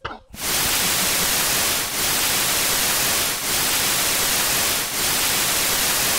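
Analog TV static: a steady hiss of white noise that cuts in about half a second in, with brief dips about every one and a half seconds.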